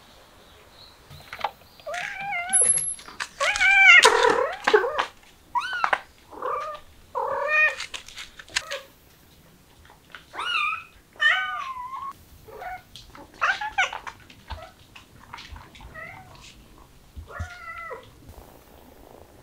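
Cats meowing over and over, a dozen or so separate calls, loudest and most crowded a few seconds in and sparser toward the end. These are eager meows for food.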